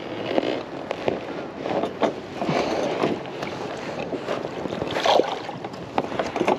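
Water splashing and sloshing in uneven bursts beside a kayak as a crappie is put into a wire-mesh fish basket hanging in the lake.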